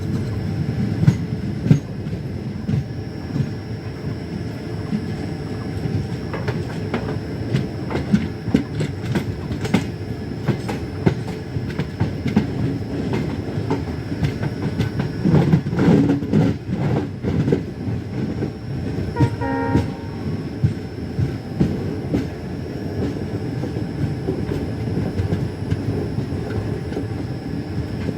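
Passenger train running at speed: a steady rumble with the clickety-clack of wheels over rail joints, and a brief pitched tone about two-thirds of the way through.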